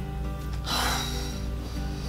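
Soft background music with steady held notes throughout; about three quarters of a second in, a woman lets out a single loud breath of dismay.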